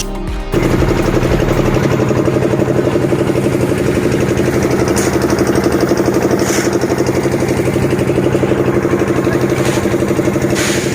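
Engine running steadily at idle with a fast, even throb, starting about half a second in.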